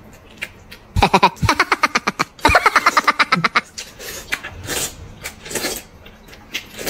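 Eating sounds, with short slurps of noodles in the second half. About a second in comes a loud, fast-pulsing pitched sound lasting some two and a half seconds.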